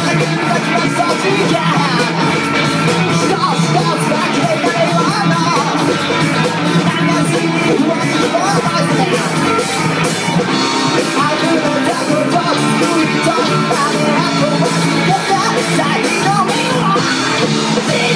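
Live rock band playing a song, with electric guitars, bass guitar and a drum kit, the drums hitting in a steady beat.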